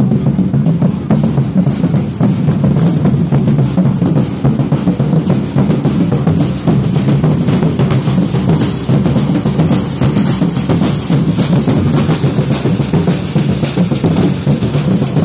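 Street percussion band playing large bass drums and snare-type drums with sticks in a dense, steady rhythm.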